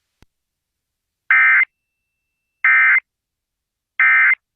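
Emergency Alert System end-of-message signal: three short bursts of SAME digital data tones, each about a third of a second long and about 1.3 s apart, marking the end of the alert.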